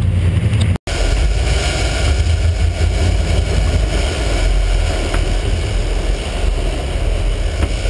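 Fishing boat's engine running steadily, a low rumble under wind and water noise. The sound cuts out for an instant about a second in, then carries on unchanged.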